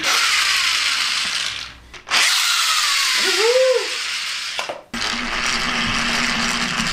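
Battery-powered PJ Masks toy car whirring as its small motor drives it across a tile floor. The whir breaks off abruptly twice, and there is a short rising-and-falling tone about halfway through.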